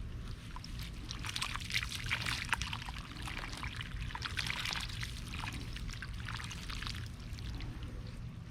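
Water pouring and splashing steadily over a low, steady hum.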